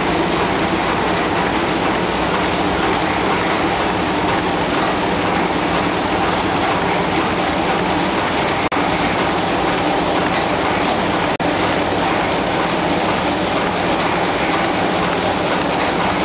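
Reel-to-pack converter, a web-fed continuous-stationery printing press, running: a steady, dense mechanical clatter, broken by two momentary dropouts about halfway through and again a few seconds later.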